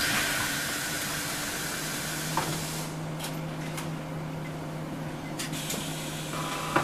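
Scania OmniLink city bus's compressed-air system letting out a loud hiss that fades over about three seconds, heard from inside the bus. A click follows, then a steady low hum, with another click near the end.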